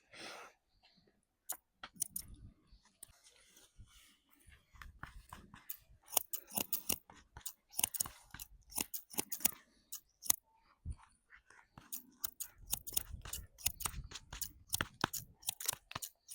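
Barber's shears snipping hair: quick runs of crisp snips with short pauses between them.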